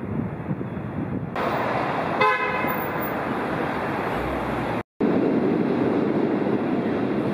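City street traffic noise, with a short car horn toot about two seconds in. The sound drops out briefly near five seconds and comes back louder.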